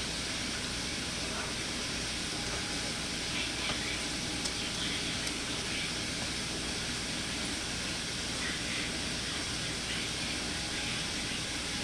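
Glue and water being stirred in a mixing bowl: soft, faint scraping and swishing over a steady hiss, with a few light ticks.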